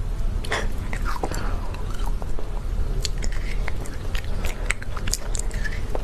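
Close-up mouth sounds of a person eating cake and its decorations: sharp clicky bites and chewing, growing dense from about halfway in, over a steady low rumble.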